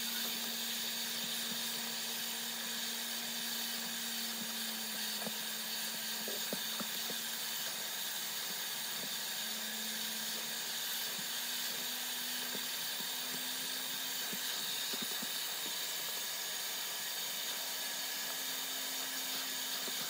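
Portable carpet extractor running steadily, its motor humming under a constant hiss of suction as the hose tool is drawn across car floor carpet. The hum shifts slightly in pitch a few times.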